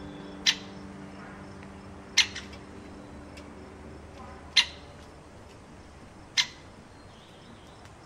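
Great spotted woodpecker giving four single sharp, high calls, about two seconds apart.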